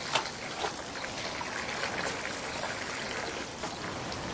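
Tap water running steadily and splashing into a basin, with two light knocks in the first second.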